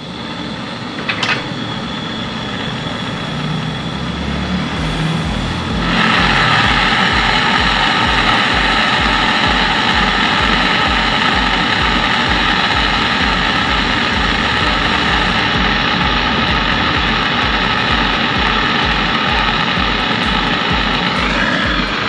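Brazing torch flame hissing steadily on the joint between a refrigerator's capillary tube and filter drier. It grows louder about six seconds in and stops near the end as the flame is taken away.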